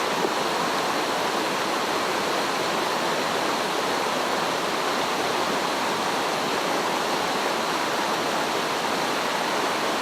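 Mountain stream water rushing, a steady, even flow with no change.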